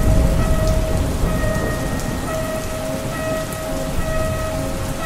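Steady heavy rain with a low rumble of thunder, strongest in about the first second. Slow, held synth notes sound through it.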